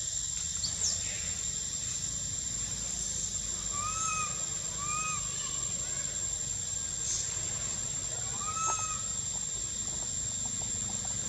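Young macaque giving short whistle-like coo calls, each rising and falling in pitch: three separate calls, two close together near the middle and one near the end. In the monkey's situation these are contact calls for its mother's milk.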